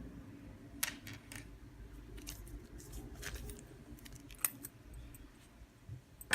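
Faint, scattered light clicks and taps from handling a small plastic handcuff key and a watch band, over a low room hum.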